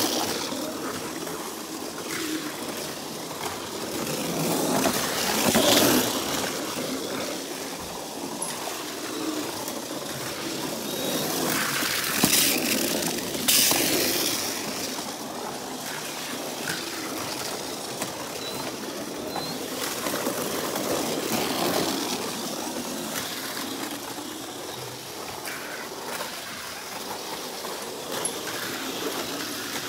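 Tamiya Mini 4WD cars running on a homemade plastic-board track: their small electric motors whir and the cars clatter through the plastic lanes. The sound swells as they pass close, about five seconds in and again around twelve to fourteen seconds.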